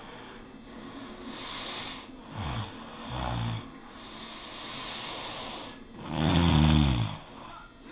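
A sleeper snoring: airy breaths alternate with short rattling snores, a couple of small ones around two and three seconds in and a loud one about six seconds in.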